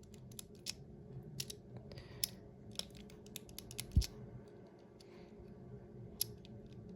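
Irregular small clicks from a Master Lock 875D combination padlock as its number wheels are turned and the shackle is tried, with one heavier knock about four seconds in, over a low steady hum.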